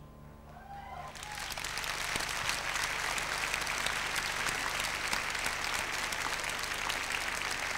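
Concert hall audience applauding at the end of a song. The last sustained notes of the band die away in the first second, then the clapping swells in and holds steady.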